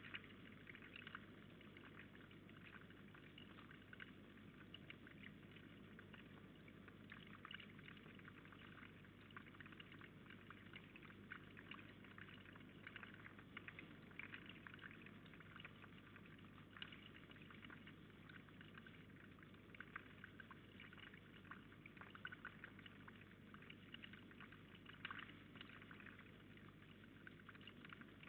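Faint steady trickle of water with fine crackling, over a low steady electrical hum. One sharp click at the very start.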